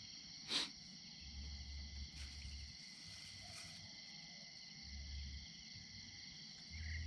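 Steady high-pitched chorus of night insects, with a single sharp knock about half a second in and a low hum that comes and goes.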